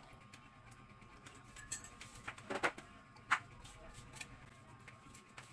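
A metal spoon clinking lightly in a ceramic coffee mug, with a few louder knocks and clatters about two and a half to three and a half seconds in, the sharpest near the end of that stretch. A faint steady hum runs underneath.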